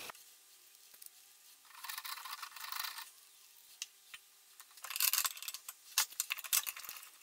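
Cast-iron tailstock of a wood lathe slid along the metal bed and clamped in place: short scraping slides, then a run of light clicks and knocks near the end.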